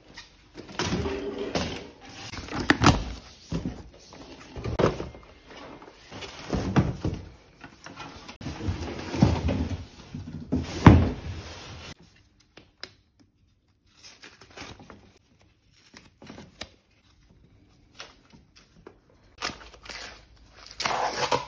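A large cardboard bike box being handled and opened, with cardboard scraping, rustling and knocking in irregular bursts for about the first half. Then quieter small handling sounds, and near the end a louder rustle of brown paper packaging being pulled off the bike's fork.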